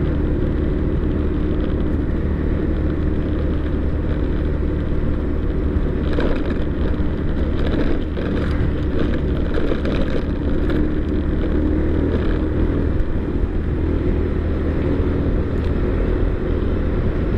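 Motor vehicle running steadily along a road, a constant engine hum with road noise. From about six to thirteen seconds in come clattering jolts as it rides over the rough, partly broken road surface.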